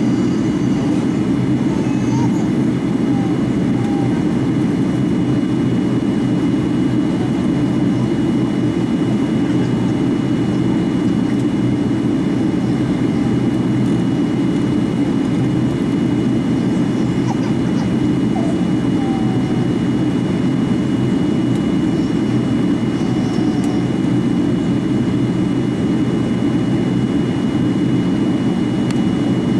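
Steady cabin drone of a Boeing 737-800 in descent: the CFM56-7B engines and the airflow, heard from a window seat over the wing, deep and even, with a faint steady high whine above it.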